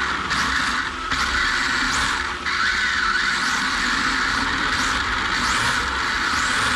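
Brushless electric motor of a 1/10 RC drift car heard from a camera mounted on the car, whining and rising and falling in pitch as the throttle is worked, over a steady hiss. The sound drops briefly twice, about a second in and again near two and a half seconds, as the throttle is eased.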